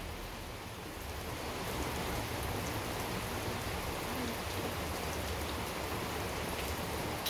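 Steady hiss of background noise with a low rumble underneath.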